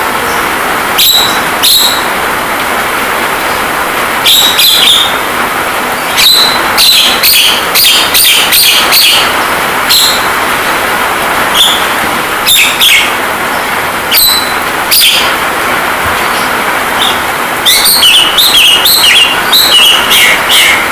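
Javan myna (jalak kebo) giving short, sharp calls in scattered bursts, with a quick run of calls near the end, over a steady hiss of rain sound.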